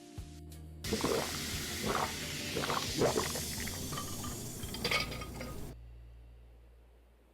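A hissing, splashing liquid sound with scattered clinks, starting suddenly about a second in and cutting off about four and a half seconds later, under soft piano music at the start.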